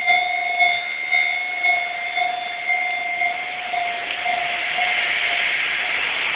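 Japanese railroad crossing warning bell ringing in a steady two-tone ding about twice a second. From about four seconds in, the rushing noise of a passing train builds under it.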